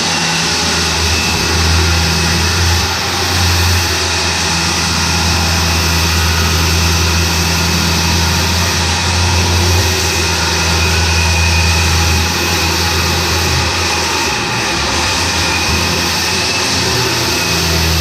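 An electric power tool's motor running steadily and without a break, with a low hum under a broad, even noise.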